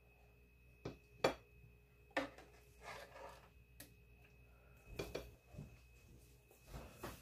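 Light clicks and knocks of a serving spoon against a frying pan and dinner plates as candied carrots are dished out, a handful of short sharp taps spaced a second or so apart.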